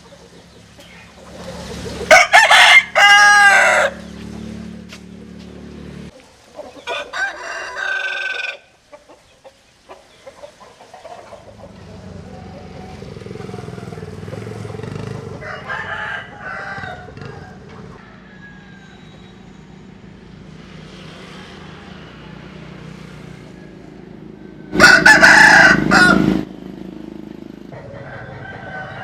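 Roosters crowing, one call after another. Loud crows come about two seconds in and again near the end, with fainter crows between.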